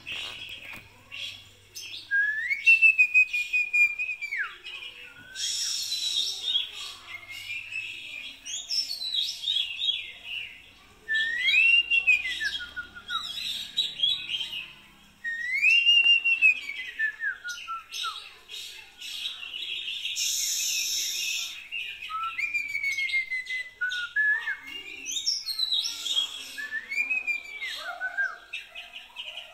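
Birdsong: clear whistled phrases that rise and then fall away, repeated every few seconds, with quick chirps between them.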